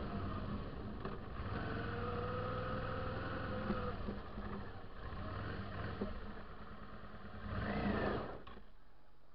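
Suzuki V-Strom 650's V-twin engine running as the motorcycle climbs, its note rising and falling with the throttle. Near the end it revs up briefly, then the sound drops suddenly to a much quieter, steady level as the bike comes to a stop on the slope.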